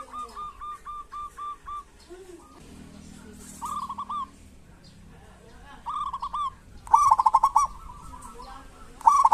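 Zebra doves calling. First comes an evenly spaced run of about eight short notes. Then four short bursts of fast, rolling, rattly notes follow, a couple of seconds apart; these are the kerot and bekur calls of a calling bird.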